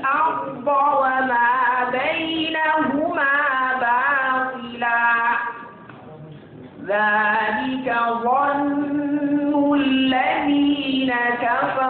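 A solo voice reciting the Qur'an in a melodic, drawn-out chant: long held notes that waver and turn in ornaments, with a short breath pause about six seconds in before the line resumes.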